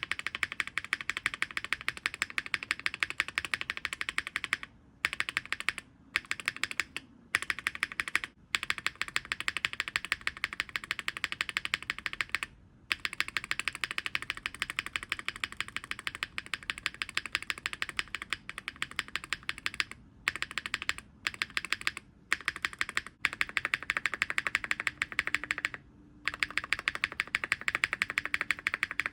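Mechanical keyboard spacebar pressed rapidly and repeatedly, a dense run of clacks broken by brief pauses, as lubed switches are swapped under it: HMX Sunset Gleam, then HMX Hyacinth V2, then an Epomaker Wisteria Tactile near the end. The HMX switches carry some added noise from lube on their top-out parts.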